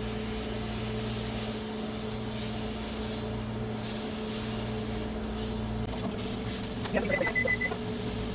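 A kitchen appliance runs with a steady electrical hum and hiss. Part of the hum stops about six seconds in, followed by a few clicks and a short run of high electronic beeps.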